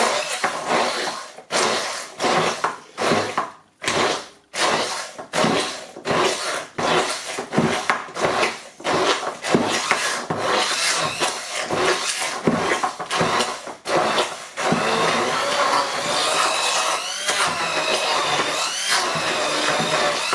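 Bamix immersion hand blender with its multi-blade pulsed in many short bursts, chopping chickpeas into hummus, then run without stopping for the last few seconds, its motor whine wavering in pitch as the paste thickens around the blade.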